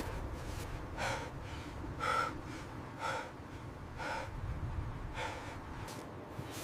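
Heavy, gasping breaths, five of them about a second apart, over a steady low rumble of wind noise.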